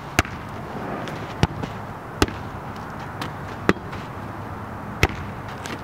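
A volleyball being bumped and tossed back and forth: five sharp smacks of the ball on forearms and hands, unevenly spaced, over low outdoor background noise.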